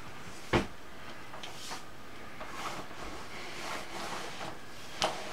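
Two sharp knocks, one about half a second in and one near the end, with faint rustling and handling noises between them: objects being handled and set down.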